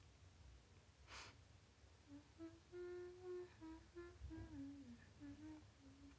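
A young woman softly humming a short tune of stepping notes, with one downward slide, for about four seconds. A brief breath sound comes about a second in, before the humming starts.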